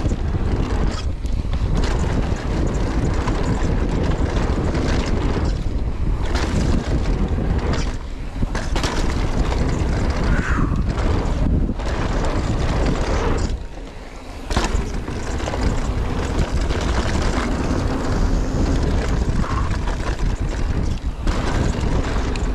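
Wind rushing over the microphone as a mountain bike descends a trail at speed, with a brief lull about two-thirds of the way through.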